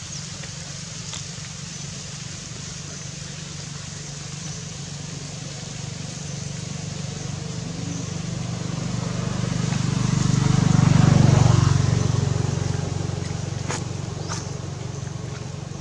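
A motor vehicle passing by, its low engine sound growing louder to a peak about eleven seconds in and then fading away.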